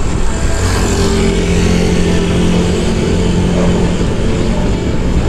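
Wind and road noise on a handlebar-mounted action camera while riding a bicycle, with a motor vehicle engine humming steadily nearby from about half a second in for roughly three seconds.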